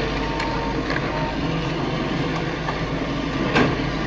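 Thin bamboo strips clicking and rubbing against the cage's bamboo ribs as they are threaded through by hand, a few sharp clicks over a steady background hum.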